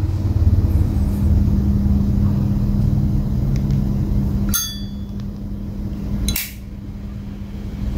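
Two sharp metallic clicks about two seconds apart, typical of a Zippo lighter's hinged lid being flicked open and snapped shut, over a steady low rumble.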